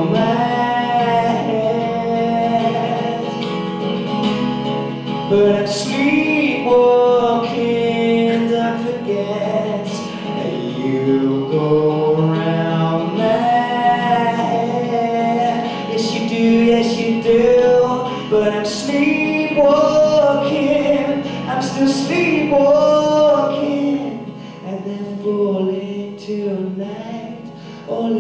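A man singing with his own acoustic guitar accompaniment, the voice carrying a melody over the steadily played guitar. It gets quieter near the end.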